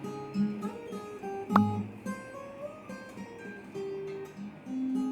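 Background music of plucked guitar notes, with one sharper pluck about one and a half seconds in.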